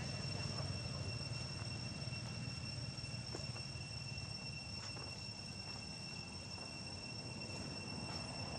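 Insects chirring with a steady, even, high-pitched tone that never changes pitch, over a low background rumble.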